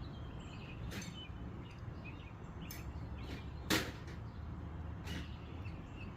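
A few light metal clicks and clinks of sockets being handled and tried on a ball stud, with one sharper clink a little past halfway.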